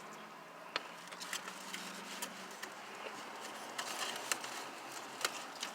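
Quiet eating and food-handling noises: scattered sharp clicks and crinkles, as of chewing fried onion rings and handling paper wrappers and containers, over a faint steady low hum.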